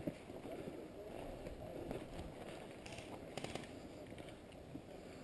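Faint footsteps crunching and rustling on dry forest ground, with a few soft clicks.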